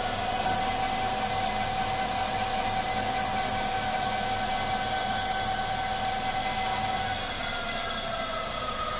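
Benchtop CNC lathe running a brass part, its spindle giving a steady whine over an even hiss. The pitch dips slightly near the end.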